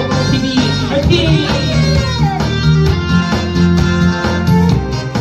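Instrumental intro of a Korean trot song: a guitar playing the melody over a full band backing with a steady bass.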